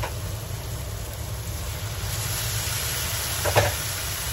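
Mushrooms in curry sauce sizzling in a wok over a gas flame: a steady hiss that grows brighter about two seconds in, with one short knock of the pan a little past three and a half seconds.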